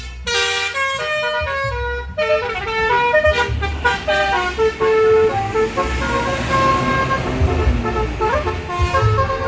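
A basuri telolet musical horn on a tour bus plays a quick tune of short, stepped notes over the low rumble of the bus engine.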